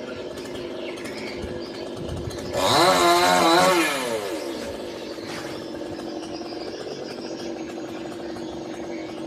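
Chainsaw idling, revved up once about two and a half seconds in, its pitch rising then falling back to idle after about a second and a half.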